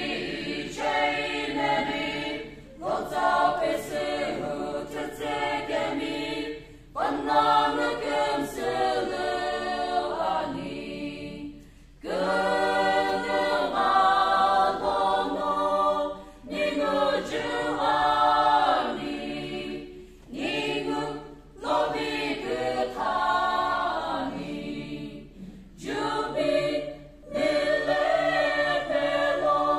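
Small mixed choir of men and women singing a cappella, in phrases of a few seconds with short breath breaks between them.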